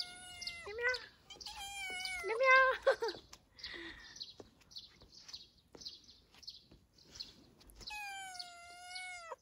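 Domestic tabby cat meowing: a long drawn-out meow at the start, several shorter meows about two to three seconds in, and another long meow near the end.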